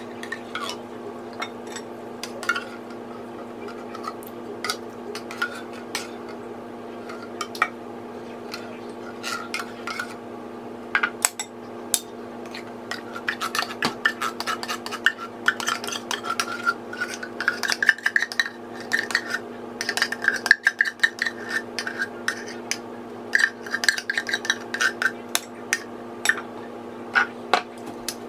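Metal spoon clinking and scraping against a can and a glass mixing bowl while coconut cream and condensed milk are added to beaten eggs. There are sparse clicks at first, then busier scraping and clinking from about eleven seconds in to near the end, over a steady low hum.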